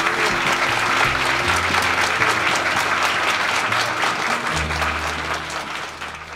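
Audience applauding, many hands clapping, over background music with low held notes; the applause fades away near the end.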